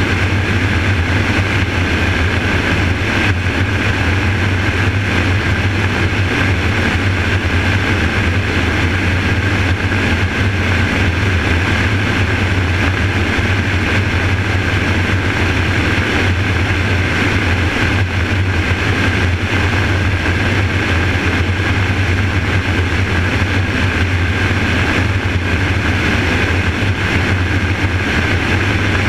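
Helicopter in steady cruising flight, heard from a camera mounted on its outside: a constant low drone from the rotor with a steady higher whine over a rush of air noise.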